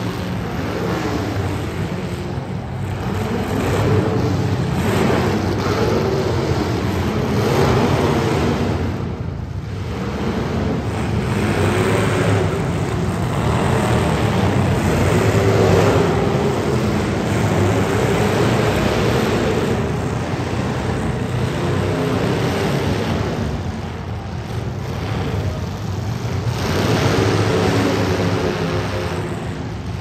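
Several demolition derby car engines running hard and revving, their pitch wandering up and down. The engines ease off briefly twice.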